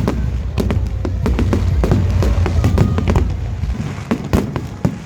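Fireworks going off in rapid succession: many sharp bangs and crackles over a low rumble that eases near the end.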